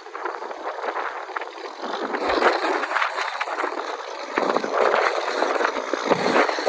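Dry grass crackling and rustling close against the microphone, a dense scratchy noise that swells and eases without letup.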